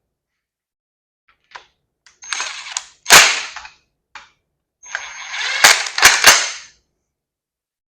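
A power tool drives the main bearing cap bolts of a small-block Chevy 305 down to snug. It runs in two bursts of about a second and a half each, with a thin high whine and sharp clacks, three of them close together near the end of the second burst.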